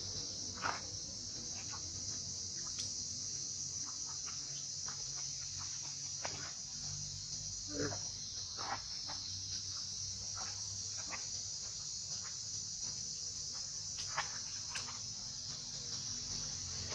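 Steady high-pitched drone of an insect chorus, with scattered short faint chirps and clicks over it.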